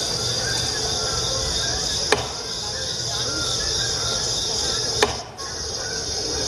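Chopping sound effect: two sharp axe strikes about three seconds apart, over a steady high hiss.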